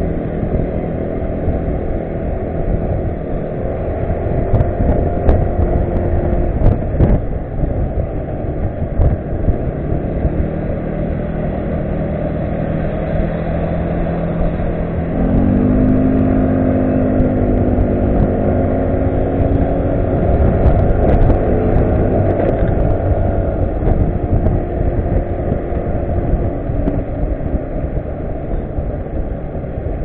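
Yamaha Cygnus RS 125 scooter on the move: its single-cylinder engine running under throttle over wind and road rush. The engine note steps up about halfway through as it speeds up.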